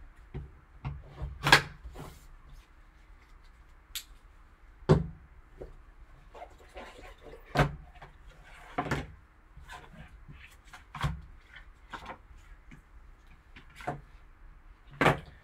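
Handling sounds of a cardboard trading-card box being unsealed with a folding knife and its lid slid off: scattered sharp taps and knocks of cardboard, with soft rustling and scraping between them.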